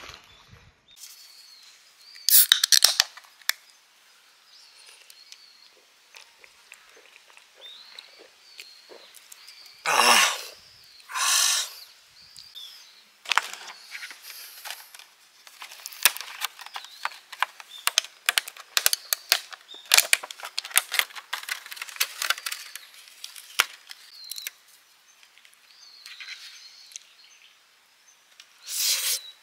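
A few loud bursts of rustling and crinkling, with many sharp clicks and taps, as camping gear and a plastic food container are handled. Birds chirp faintly.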